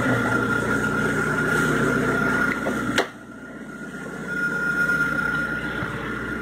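Citroën Xsara Picasso engine idling a little low with its mass air flow sensor unplugged, a steady high whine running through it. About three seconds in a car door shuts with a sharp knock, and from then the engine is heard much quieter and muffled, as from inside the cabin.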